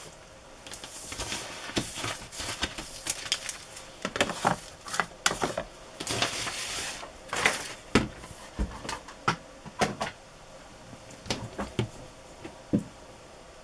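Sheets of paper rustling and sliding across a tabletop, with scattered taps and knocks as small craft supplies are picked up and set down.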